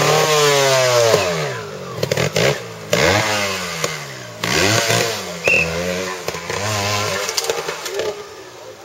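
Trial motorcycle engine revved in a series of throttle blips, its pitch climbing and dropping about five times. Loudest at first, then fading.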